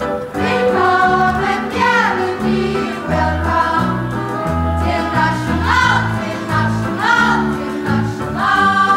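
A chorus of voices singing a stage revue number over band accompaniment, with a bass line stepping from note to note.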